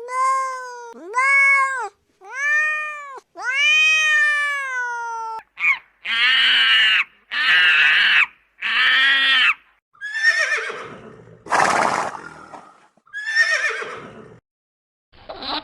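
A series of animal calls: four clear, pitched calls that each rise and fall, then six harsher, noisier calls.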